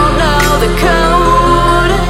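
Background music: a melody of wavering, gliding notes over a steady low bass.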